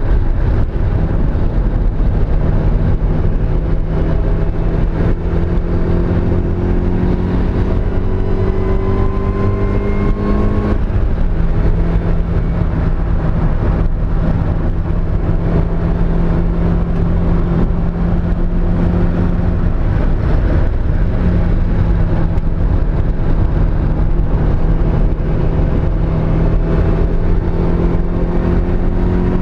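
Mazda Miata's four-cylinder engine running under load, its pitch climbing slowly for about ten seconds, then dropping sharply, holding steady and climbing again near the end. The engine has a misfire on cylinder 2.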